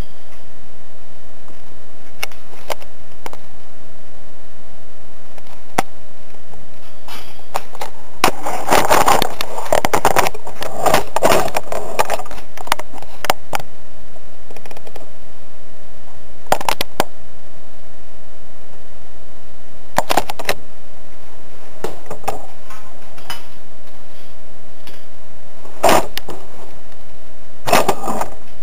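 Scattered sharp knocks and clicks over a faint steady hum, busiest from about eight to thirteen seconds in, then a few single sharp knocks several seconds apart.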